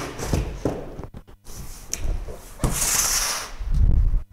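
Large cardboard box being lifted and moved: cardboard scraping and rustling as it slides, then a heavy thump shortly before the end as it is set down.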